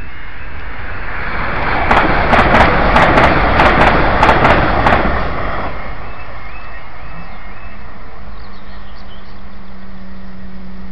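An electric train passing over a level crossing, loudest between about two and five seconds in, with a quick run of sharp wheel clicks over the rail joints, then fading. The crossing's two-tone alarm is faintly heard at the start, and once the train has gone a steady low hum begins as the barriers lift.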